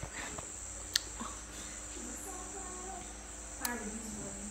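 Crickets chirring steadily in a continuous high tone. There is a sharp click about a second in, and another click with a brief low murmur of voice near the end.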